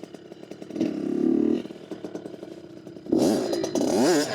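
Dirt bike engine running low, with a short blip of throttle about a second in, then revved up and down sharply near the end.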